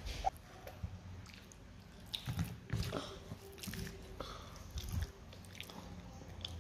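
Faint eating sounds: a child chewing and fingers picking at rice on a plastic plate, with a few scattered small clicks.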